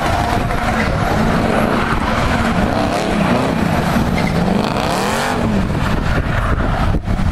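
Drift car's engine revving up and down again and again under throttle as the car slides sideways, over the rushing noise of its spinning tyres.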